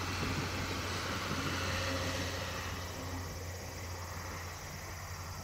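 A passing train's low rumble, dying away over the last few seconds as it moves off.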